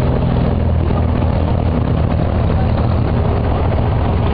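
Water taxi's diesel engine running steadily, a low even drone with no change in speed.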